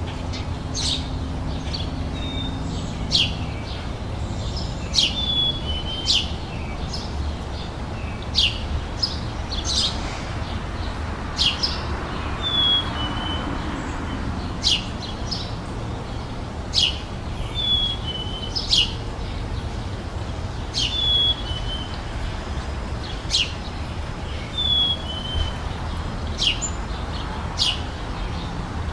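Small songbirds chirping: sharp, high, quickly falling chirps about once every second or two, with short descending notes in between, over a steady low rumble.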